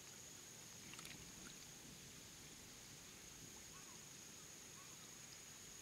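Near silence: faint outdoor ambience with a steady high-pitched whine and a faint tick about a second in.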